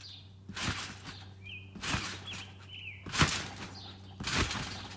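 Trampoline mat and springs thudding with each bounce: four landings about a second apart, the loudest a little past the middle. Small birds chirp between them.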